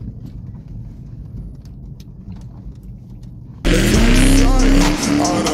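Low rumble of a car engine heard from inside the cabin while rolling slowly. About three and a half seconds in it cuts abruptly to a much louder car engine revving, its pitch rising, as the car spins doughnuts on a dirt field.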